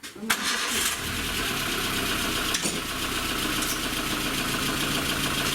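Lada Kalina car engine starting up and settling into a steady idle, with a sudden onset and a loud hissing upper layer while it runs.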